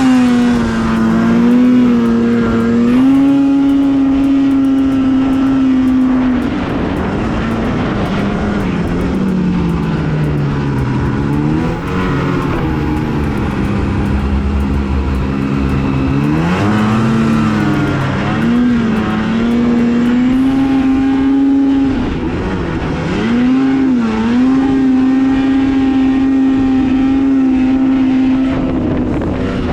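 Two-stroke snowmobile engine running hard at high revs, with the pitch dropping off and climbing back several times: a long dip and rise around the first third, then shorter dips past the middle and near the end.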